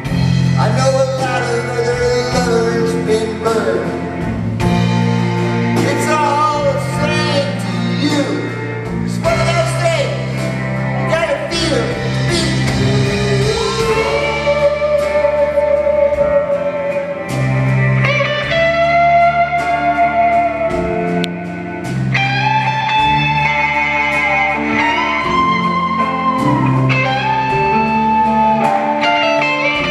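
Live rock band playing an instrumental passage, an electric lead guitar carrying the melody with bent and sliding notes over bass and drums.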